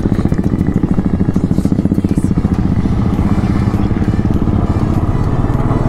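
Royal Enfield motorcycle running at a steady cruising speed, heard from on the bike, its exhaust beat a fast, even pulse.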